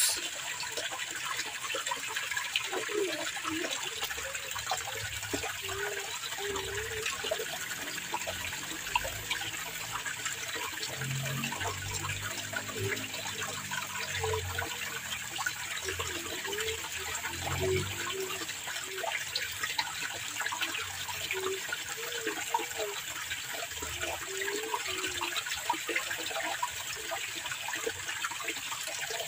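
Steady rushing of running water in a rice-field irrigation channel. A faint low hum swells and fades in the middle.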